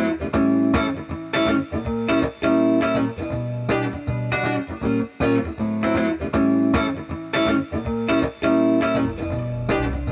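Background music led by guitar, with plucked notes in a steady rhythm.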